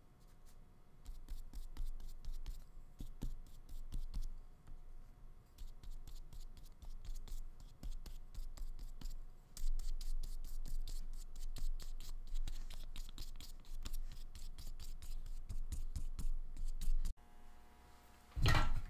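A small paintbrush scratching paint onto paper in many short, soft strokes. Near the end, a louder bump.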